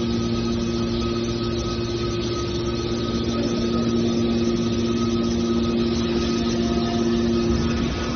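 Hydraulic scrap metal baler running: a steady hum from its pump and motor with a constant pitch while the press cylinders move.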